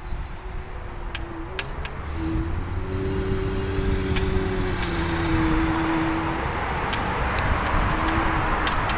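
Segway Ninebot Max G30D electric kick scooter under way: a steady whine from its hub motor, shifting slightly in pitch, over a rushing rolling noise that grows louder. Scattered sharp ticks sound from bumps and grit on the path.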